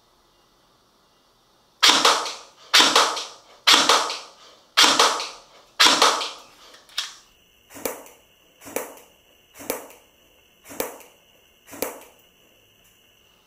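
G&G PCC45 electric airsoft gun firing single shots, about ten at roughly one a second. The first five are louder with long ringing tails, the rest shorter and quieter.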